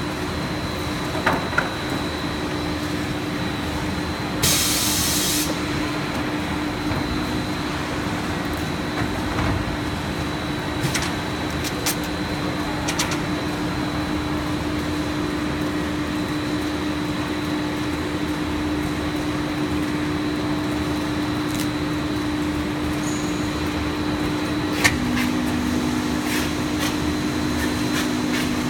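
PET sheet extrusion line and winder running: a steady machine drone with a thin high whine over it. A short hiss about four and a half seconds in, a few scattered clicks, and a second, slightly lower drone that joins near the end.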